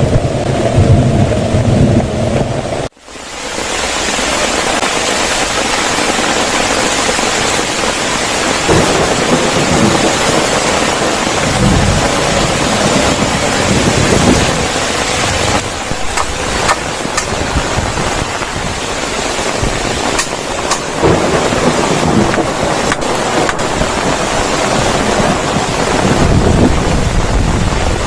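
Heavy rain pouring steadily, with low rumbles of thunder rising through it several times. Wind buffets the microphone for the first three seconds, then the sound cuts off abruptly and the rain starts again.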